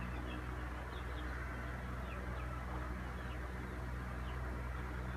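Steady low electrical hum with a faint hiss of room noise, and faint short high chirps now and then.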